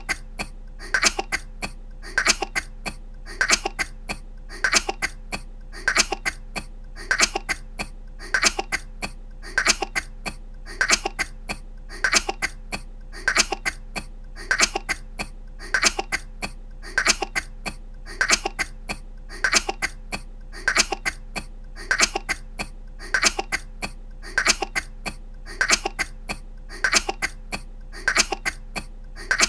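A young woman's voice coughing: a quick cluster of short coughs repeated about once a second, identical each time, as a looped recording.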